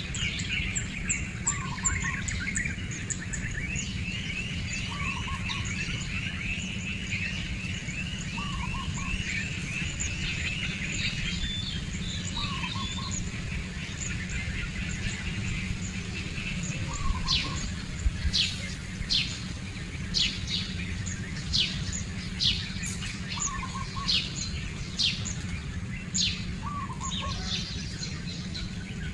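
Wild birds calling: a fast run of chirps through the first ten seconds or so, a short call repeated every three to four seconds, and sharp high chirps about once a second in the second half, over a steady low rumble.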